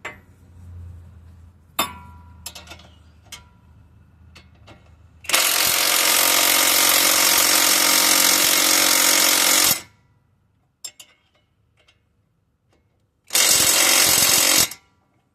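Impact wrench hammering bolts down on a steering knuckle, in two runs: a long one of about four and a half seconds, then a shorter one near the end. A few metallic clinks of tools and parts come before the first run.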